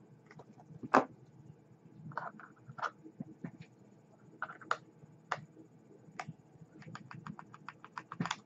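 Flush cutters snipping 22-gauge nichrome coil leads on a rebuildable atomizer: a few sharp clicks, the loudest about a second in and another near the end, among small ticks and short scrapes of metal being handled.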